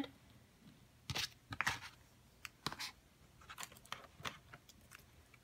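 Scattered faint clicks and light rustling: small plastic Shopkins figures tapping on the tabletop as they are set down, and a hand rummaging among the plastic pumpkin packs in a cardboard display box.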